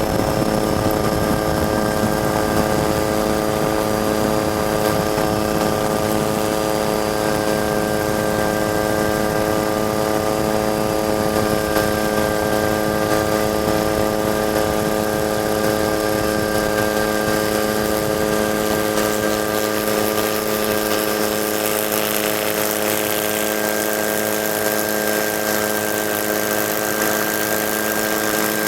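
Helicopter engine and rotor drone heard from on board: a constant hum made of several fixed tones, with a thin high whine above it.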